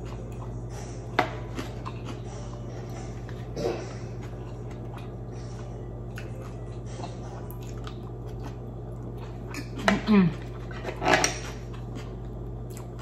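Eating at the table: utensils click and scrape against the plate and serving board, a few separate knocks with a cluster of louder clicks near the end, as a knife and fork cut into grilled squid. A steady low hum lies underneath.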